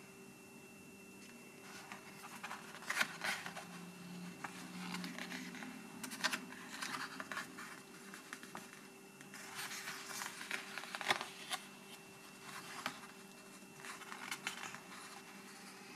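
Paper pages of a softcover photo book being turned by hand, rustling and flicking in several short spells, over a faint steady hum.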